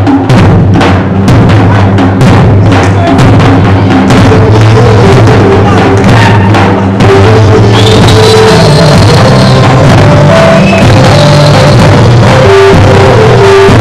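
Very loud drumming on large double-headed folk drums, the Albanian lodër, and a small drum, over a steady melody. The strokes are dense for the first seven seconds or so, then drop back and the melody carries on.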